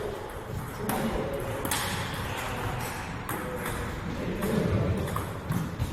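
Table tennis balls clicking off paddles and tables, sharp irregular pocks about once a second, echoing in a large sports hall.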